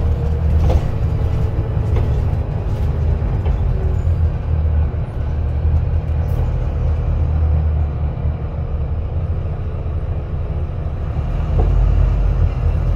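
Bus engine and drivetrain running, heard from inside the passenger saloon: a steady deep rumble, with a faint whine over it in the first few seconds, as the bus slows for a stop.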